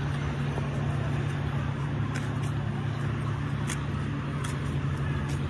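Steady low mechanical hum, like a motor vehicle engine idling, with a few faint clicks of a knife working through jackfruit.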